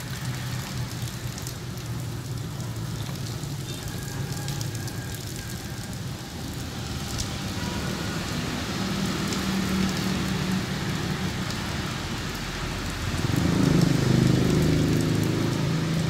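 Rain falling onto standing water on a paved surface, a steady patter of drops splashing into the puddles. A low hum comes in and grows louder in the last few seconds.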